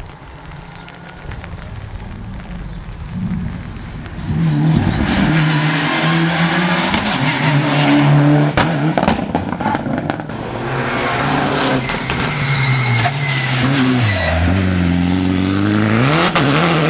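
Rally car engine revving hard as the car arrives, loud from about four seconds in, with a few sharp cracks about halfway through. Near the end the revs drop, then climb again as the car accelerates away.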